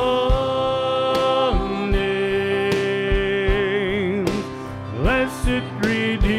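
Live worship band: a man sings long held notes, one wavering near the middle, over acoustic guitar and a drum kit.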